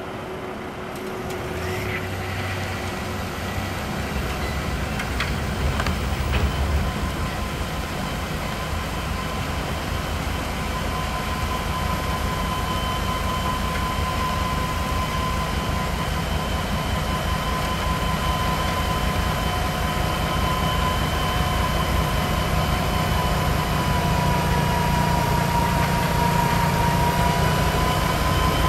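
Fendt 516 Vario tractor running a front-mounted Dalen snow blower under load, throwing snow and ice up the chute into a dump truck, over a low engine rumble. A steady high whine from the blower strengthens about ten seconds in, and the whole sound grows gradually louder.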